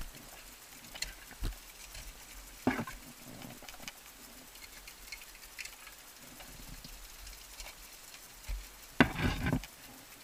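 Ice axe picks striking into frozen waterfall ice: a few sharp hits about a second and a half and nearly three seconds in, then a quick run of louder hits near the end. Small ice chips patter and click between them.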